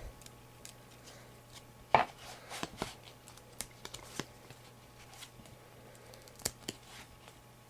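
2009 Upper Deck Heroes football trading cards being handled and peeled apart, the cards sticking together: scattered soft clicks and flicks of card stock, the sharpest about two seconds in.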